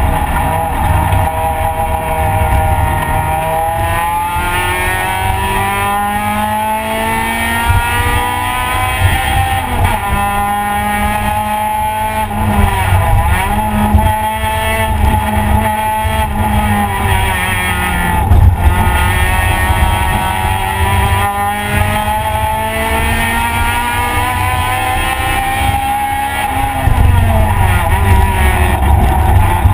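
Race car engine heard from inside the cabin at full throttle. Its pitch climbs as it pulls through each gear and drops at each shift and under braking, several times over.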